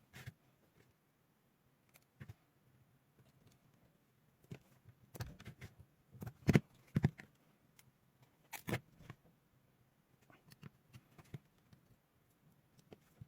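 Scattered small clicks and taps of hand tools and parts being handled while a battery pack is wired up, a few at a time with quiet gaps between.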